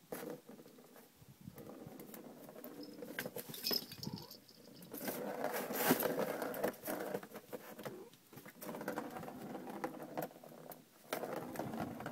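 A ball rolling and rattling around the plastic track of a circle-ball cat toy as a cat swats at it, with a stream of small clicks and knocks from paws on the plastic. Loudest around the middle.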